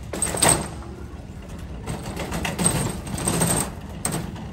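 Loaded shopping cart rolling over pavement, its wheels and wire basket rattling, with a loud jolt about half a second in and a longer run of rattling in the middle.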